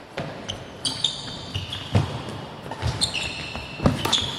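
Badminton rally: rackets hitting the shuttlecock in sharp cracks about once a second, with short high squeaks from shoes on the court in between.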